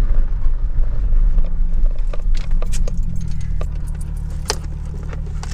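2007 Nissan 350Z's V6 with an aftermarket exhaust running low as the car pulls off onto a dirt shoulder, settling to a steady idle about three seconds in. Scattered sharp clicks and rattles over it as the car-mounted camera is handled.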